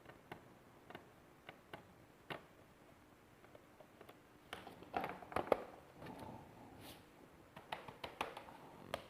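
Scattered light clicks and taps from hands and a small tool working at a laptop's plastic case, with a short cluster of louder knocks about five seconds in.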